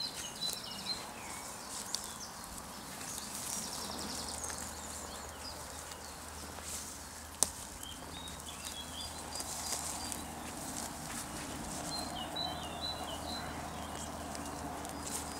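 Woodland birds chirping, in a short run of calls near the start and again about twelve seconds in, over footsteps and rustling through long grass. A single sharp click about seven seconds in, and a faint low hum underneath from a few seconds in.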